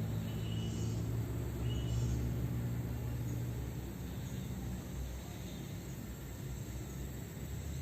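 A motor vehicle's engine running with a steady low hum that fades away after about three and a half seconds, with a few short high chirps in the first two seconds.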